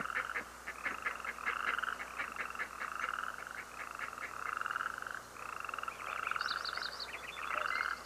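Cattle egret nestlings giving a string of rapid, rattling begging calls, each about half a second long and repeated with short gaps, as a parent arrives with food. A few higher squeaky notes come about six and a half seconds in.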